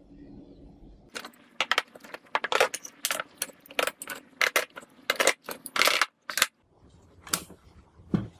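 Steel C-clamps and bar clamps being loosened and pulled off a glued-up wooden speaker box, clinking and clanking against each other and the bench in quick succession. A couple of duller knocks near the end as the box is handled.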